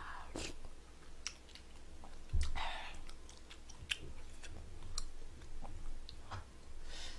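Close-miked chewing of a mouthful of sujebi dough and braised chicken: soft wet smacking with small scattered clicks, and one louder wet smack about two and a half seconds in.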